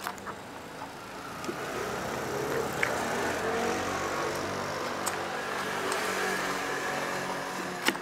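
A motor vehicle's engine running close by, growing louder after about a second and a half and then holding steady. A few sharp clicks sound over it, the loudest near the end.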